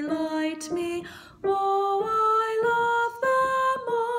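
A woman singing solo: a run of held notes climbing step by step, then a long final note sung with vibrato near the end.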